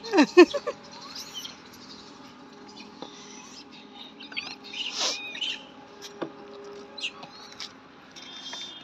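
Scattered short, high animal chirps and squeaks, with a louder falling squeal right at the start, over a faint steady hum.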